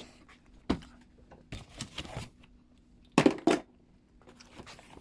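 Power tools and their bits being handled and set down: a few sharp knocks and rustles, the two loudest just after three seconds in, over a faint steady hum.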